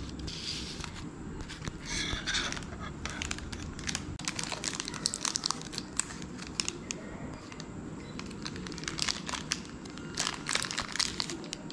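Small clear plastic parts bag crinkling as it is handled, in irregular bursts of crackles.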